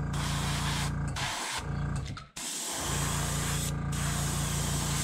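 Airbrush spraying burnt umber paint onto a jerkbait lure: a steady hiss of air and paint over a low steady hum, cut by two short breaks about one and a half and two and a half seconds in.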